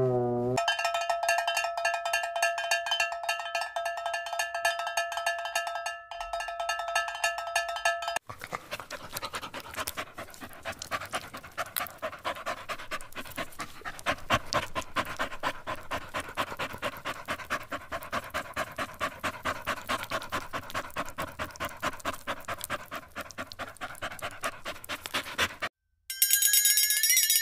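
A string of dubbed-in comic sound effects with hard cuts between them: a steady ringing tone with fast pulsing for about eight seconds, then a long run of fast, rhythmic noisy pulses, and a shrill alarm-like tone near the end.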